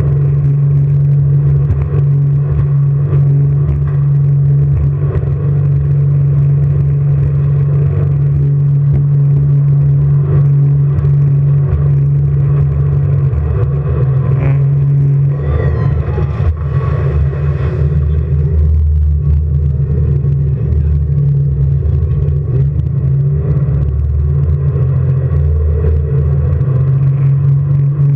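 Jet boat engine running hard, a loud steady drone. About halfway in the steady tone gives way to a deeper, uneven rumble, and the drone comes back near the end.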